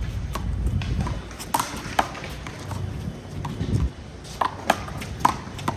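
One-wall handball rally: a handball smacking off players' hands and the wall in a run of sharp slaps, roughly one every half second to second, over a low steady rumble.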